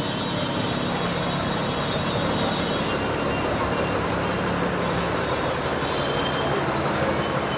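A lorry's diesel engine running steadily amid general street noise.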